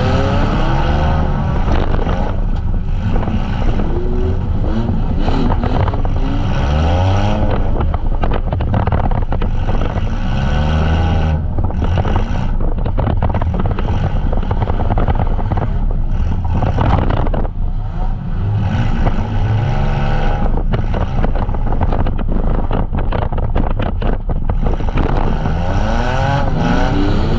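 Several demolition-derby van engines revving hard, each pitch climbing and dropping over and over, with short sharp knocks scattered through.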